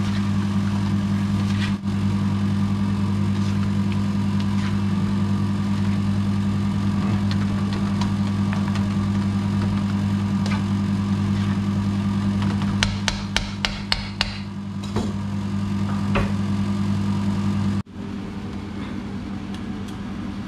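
Metal spatula stirring vegetables in a steel wok, with a quick run of sharp taps against the pan about two-thirds of the way through. A steady low machine hum underlies it all.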